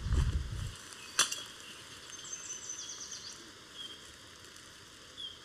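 Woodland songbird singing: a quick run of high, short notes, then a few single chirps. A low rumble stops under a second in, and a single sharp knock comes about a second in.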